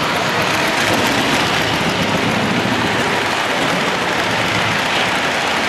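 Lionel O-gauge model freight trains rolling on three-rail track, a steady, even rumble and clatter of wheels, with a second train joining on the near track.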